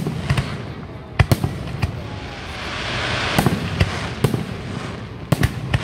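Fireworks display: aerial shells bursting in sharp bangs, several in quick succession and some in close pairs, with a hiss that swells and fades around the middle.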